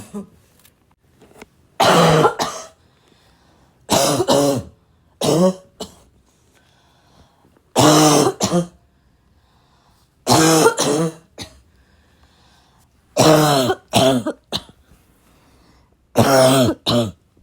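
A girl's raspy, barking cough: seven fits of two or three harsh, voiced coughs each, coming every two to three seconds.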